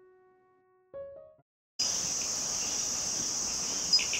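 A ringing musical note fades away and a short higher tone sounds about a second in. Then, after a brief silence, a dense chorus of chirping crickets starts abruptly and holds steady.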